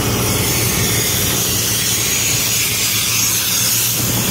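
Loaded truck's engine running steadily, with a loud, even hiss over it that eases off near the end.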